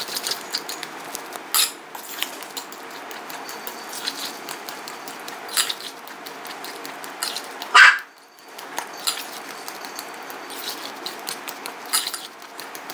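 A metal fork mashing ripe bananas in a glass bowl, with repeated clicks and scrapes of the tines against the glass. About eight seconds in there is one louder, short sound.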